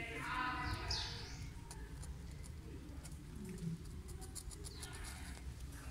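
Newborn kittens mewing: one high, pitched cry in the first second that rises at its end, then quieter, with a few faint light clicks.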